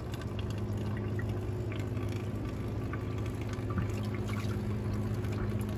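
Light water splashing and dripping around hooked white bass held at the surface on an umbrella rig, over a steady low hum from a boat motor.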